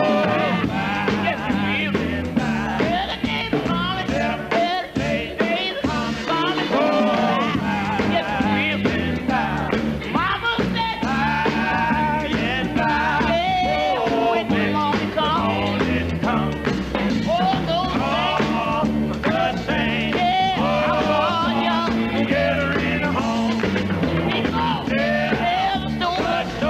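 Gospel quartet singing in harmony with band accompaniment, over a steady bass line.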